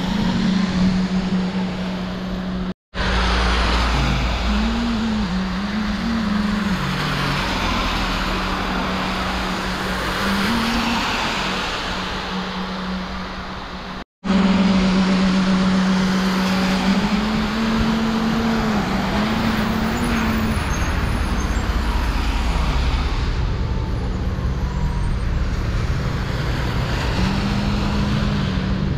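Rain falling on wet pavement with traffic on the wet road: tyre hiss swells and fades as vehicles pass, over a low hum that shifts pitch now and then. The sound cuts out for a moment twice.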